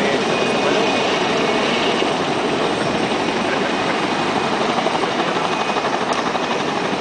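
Helicopter running with its rotor turning: a loud, steady rush of engine and rotor noise, with a fast, even beat in the second half.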